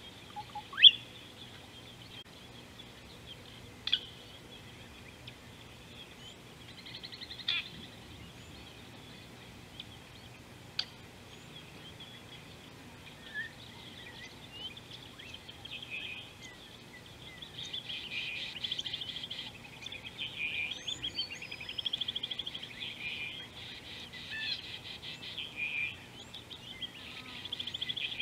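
Wild birds calling: a few short, sharp chirps in the first half, then a busier stretch of rapid trilling chatter from a little past halfway, over a faint steady low hum.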